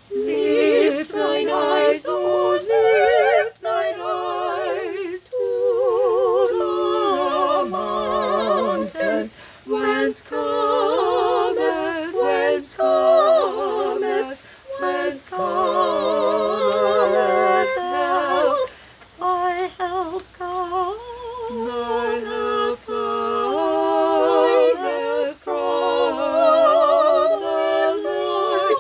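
A small group of singers performing a song a cappella in several-part harmony, with vibrato on the held notes. The singing starts right at the opening, with short breaths between phrases.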